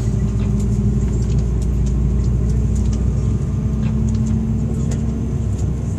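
Steady drone inside the passenger cabin of an Airbus A330-200 on the ground: a low rumble with a few steady hums, and faint scattered clicks.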